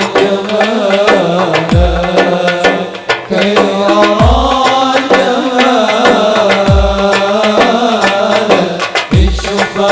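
Sholawat, Islamic devotional song: a melodic line carried over percussion, with a deep drum stroke that drops in pitch about every two and a half seconds.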